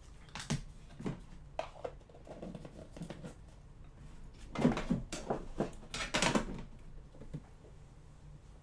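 Trading card boxes and packaging being handled and moved on a table: a series of short knocks, taps and rustles, loudest in a cluster a little past the middle.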